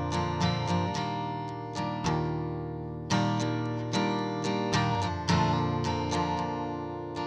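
Background music: an acoustic guitar strummed and picked in a steady rhythm, each chord ringing and fading before the next.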